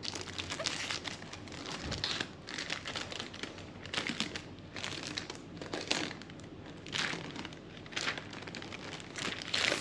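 Laptop packaging being handled and unwrapped: irregular crinkling and rustling, with louder crackles about once a second.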